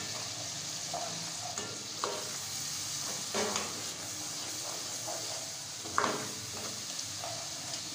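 Onion-tomato masala sizzling in an aluminium pot as it is fried and stirred with a spatula, the spices being fried to cook off their raw taste. A few louder scrapes of the spatula against the pot, the clearest about six seconds in.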